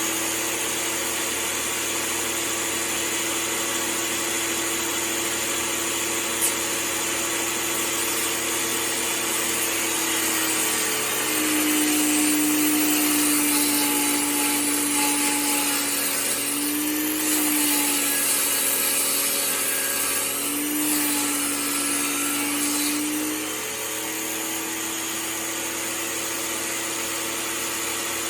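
KMC table saw running, its motor and blade giving a steady hum. For about twelve seconds in the middle the pitch sags and the sound grows louder as a board is ripped lengthwise against the rip fence, then it returns to free-running speed.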